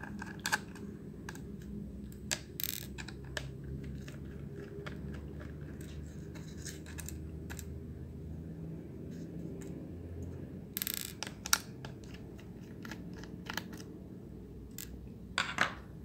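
Scattered light clicks and taps of a small screwdriver and fingers working the mounting screws out of a laptop's hard drive, with a brief scrape about eleven seconds in, over a low steady hum.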